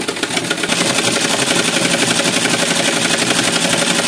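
Black domestic sewing machine stitching a seam through cotton fabric: a rapid, even clatter of the needle mechanism that picks up speed over the first second and then runs steadily.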